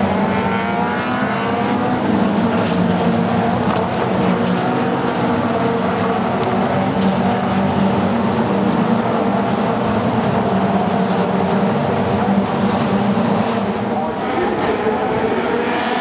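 Several Caterham Seven race cars with four-cylinder engines running hard past the trackside. The engines rev up in rising sweeps as a car accelerates near the start and again near the end, over a steady mix of other engines.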